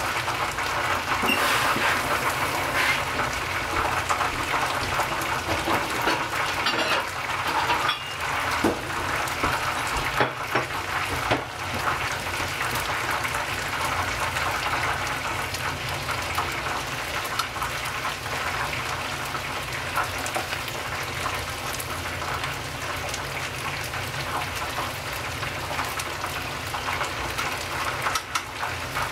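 Karaage chicken pieces deep-frying in hot oil: a steady bubbling sizzle with scattered crackles and pops, a little louder in the first ten seconds or so.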